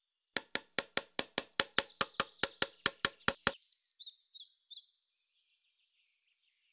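Rapid hammering: a quick run of about seventeen evenly spaced knocks, some five a second, lasting about three seconds, followed by a few short high bird chirps.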